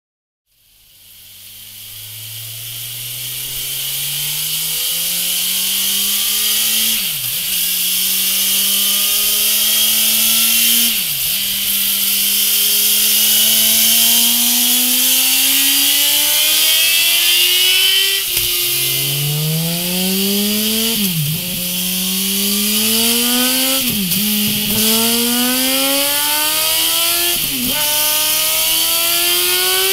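2017 Suzuki GSX-R 1000's inline-four engine under full throttle on a dyno, revving up through the gears: the engine note climbs and drops sharply at each upshift, about six times, over a steady high hiss. The first pulls run on the stock exhaust, the later ones, from about two-thirds of the way in, on a MIVV Ghibli slip-on silencer.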